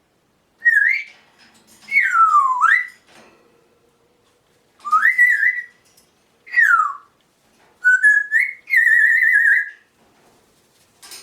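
African grey parrot whistling: about six clear whistles in a row, some sliding down in pitch, some rising, the last one held longer with a wavering pitch.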